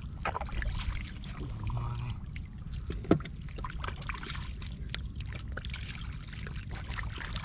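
Shallow muddy water splashing and sloshing as catfish are grabbed by hand and flap in the mud, with many small sharp splashes and slaps. One short, louder sound stands out about three seconds in.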